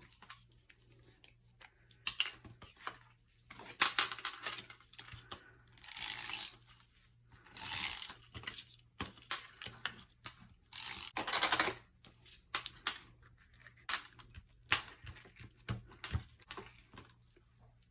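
Paper and card being handled on a work table: several short rustling, sliding swishes with scattered light taps and clicks in between.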